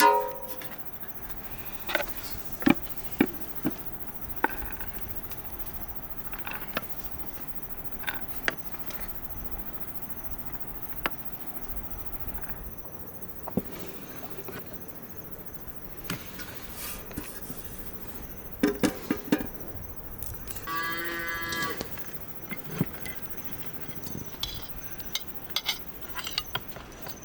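A cow moos once, a call of about a second and a half, about 21 seconds in. Scattered sharp clicks and knocks come throughout, with a cluster just before the moo.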